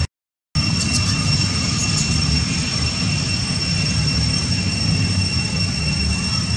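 Outdoor background sound: a steady high-pitched whine with a fainter, higher whine above it, over a low rumble. It drops out completely for about half a second just after the start, then carries on unchanged.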